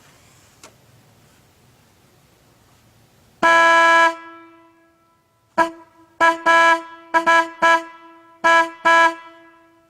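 Federal Signal Model 53 horn sounding loud, running through code patterns. One long blast comes about three and a half seconds in, followed by short blasts in quick groups of one, two, three and two.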